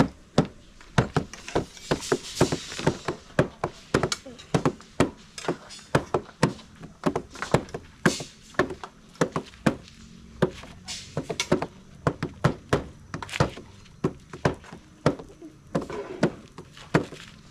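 Repeated sharp knocks on wood, irregular, two to four a second, like chopping on a board or hammering.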